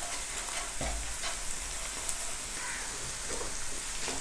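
Chopped onions with salt and red chili frying in hot oil in a pan: a steady sizzling hiss with small crackles.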